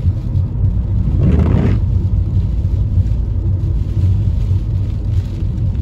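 Steady low rumble of a car driving on a wet road in heavy rain, heard from inside the cabin, with a brief rushing swell about a second in.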